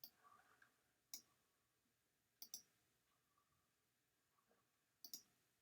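Near silence broken by faint, sharp clicks: a single click, then a quick double click, and another double click near the end.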